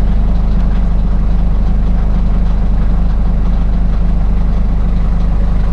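Mercedes Vito W638 diesel engine idling steadily, heard from inside the cab. It has been preheated by coolant and oil-pan heaters, so it sits at normal idle with no raised cold-start warm-up idle.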